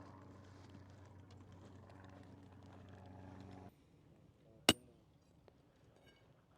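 A steady, faint engine hum that cuts off suddenly a little past halfway, followed by a single sharp click.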